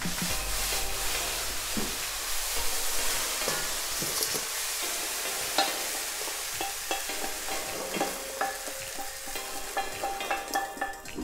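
Hot broccoli, peas and red pepper sizzling in a non-stick frying pan, then a wooden spoon scraping and pushing them out of the pan into a stainless steel bowl, with scattered clicks and knocks as spoon and vegetables hit pan and bowl.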